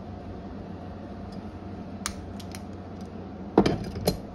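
A few light metal clicks, then two sharp clacks about half a second apart near the end, as locking pliers are unclamped from a screwdriver-handle key and handled on a wooden bench. A steady low hum runs underneath.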